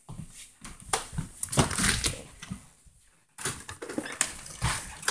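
Irregular knocks and rustling, the handling noise of a phone camera carried by hand.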